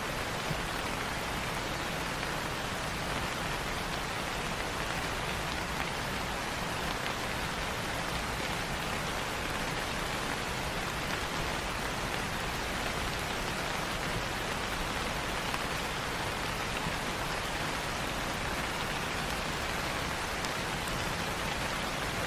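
Light, steady rain falling on a surface: an even patter with no thunder.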